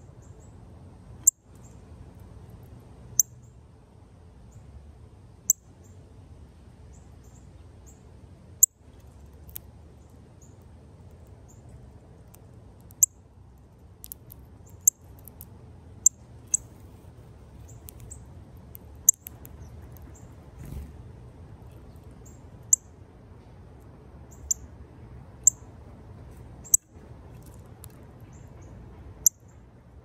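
A male northern cardinal cracking seeds in its beak at close range: short, sharp, high clicks at irregular intervals of a second or two, over a steady low background rumble.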